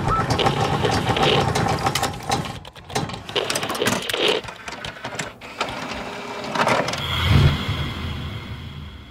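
Sound effects for an animated logo: a fast mechanical clatter of many clicks and knocks with whooshes, then a deep whoosh and hit about seven seconds in, followed by a faint steady high tone.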